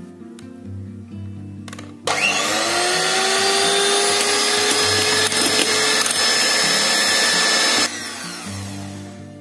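Electric hand mixer switched on about two seconds in, its motor whining up to speed and then running steadily as the beaters whip egg yolks into beaten egg whites in a glass bowl; it stops abruptly near the end. Soft background music plays underneath.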